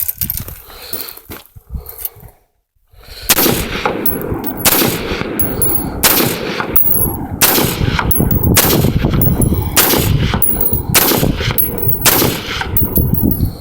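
AR-15 rifle fired about eight times in slow, steady succession, roughly one shot every second and a quarter, starting about three seconds in.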